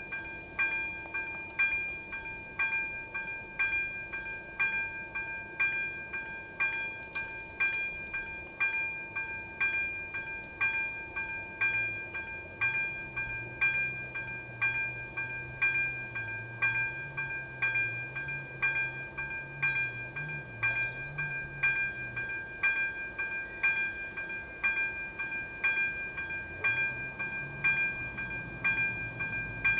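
Electronic level-crossing warning bell (AŽD ZV-02) ringing in an even rhythm, about two strikes a second, as the crossing is closed for an approaching train.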